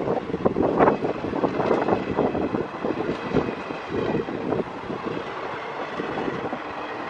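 Indian Railways passenger coaches rolling past, their wheels clattering and knocking on the track in a dense, irregular run over a steady rumble.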